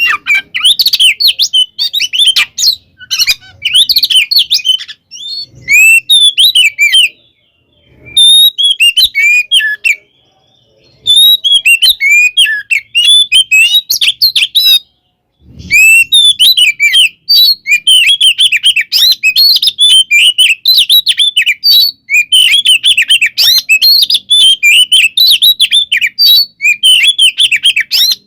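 Oriental magpie-robin (kacer) singing a loud, fast, varied song of whistles and chirps, delivered in long bursts broken by three short pauses. This is the full, aggressive song used to provoke a rival kacer.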